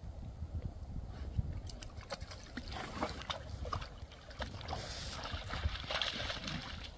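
A puppy wading and paddling through a muddy pond, water sloshing and splashing, loudest about five to six and a half seconds in as it splashes at the edge of the water.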